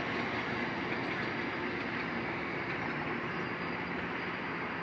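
Diesel locomotive of a Metrolink commuter train idling: a steady engine hum under a constant hiss that fades slightly.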